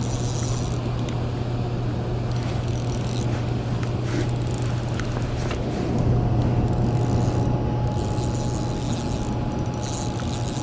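Steady low rumble and rush of water flowing below the dam, with a few faint clicks.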